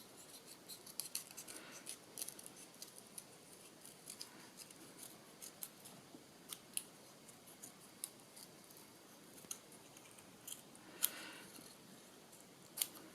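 Scissors snipping paper in many short, irregular cuts, trimming the paper round the outline of an MDF butterfly shape; faint.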